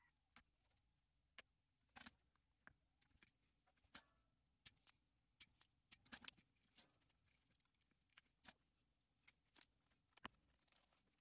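Near silence broken by scattered faint clicks and small taps from tools and small electronic parts being handled on a wooden workbench during desoldering. The sharpest tap comes about six seconds in.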